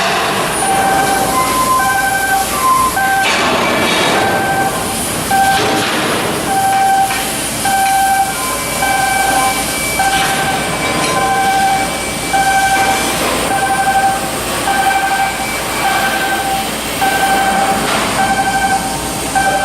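Overhead crane's warning alarm beeping over and over in short, evenly repeated beeps while the crane lifts and turns a steel hull block, over steady machinery noise, with a few metal clanks.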